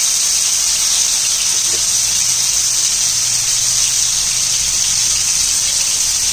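Boneless fish pieces coated in spice paste frying in hot oil: a loud, steady sizzle.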